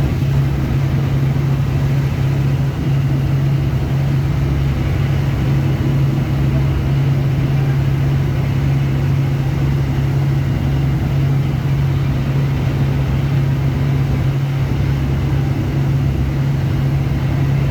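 Steady low drone of a cruise boat's engine, unchanging throughout, with a constant rushing noise over it.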